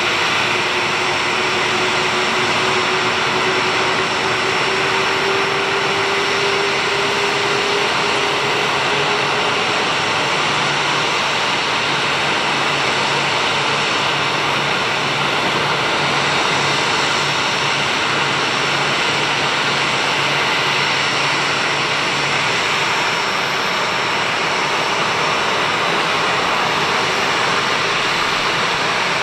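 Boeing 737-400's CFM56-3 jet engines running at taxi power: a steady, loud rush with a whine. A thin tone slowly rises in pitch over the first several seconds, and a low hum comes in about ten seconds in and drops out near twenty-three seconds.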